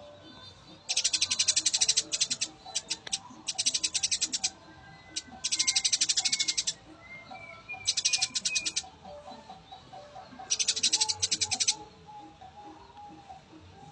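Eurasian tree sparrows chirping actively. Five bursts of rapid, high chirps come about a second long each and a second or two apart, with softer, lower calls in between.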